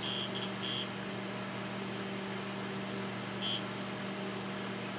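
Steady hum of a TRS-80 Model 16B's fan and power supply, with a few short high beeps in the first second and one more about three and a half seconds in, as the computer resets and starts to boot.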